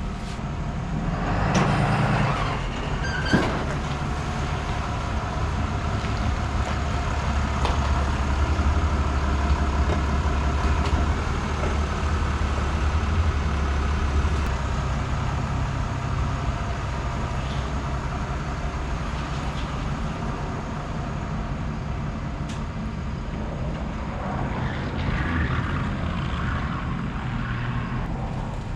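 A vehicle's engine running steadily at low speed while it is manoeuvred, swelling a little in the middle. There is a short hiss about two seconds in and a single metallic knock just after.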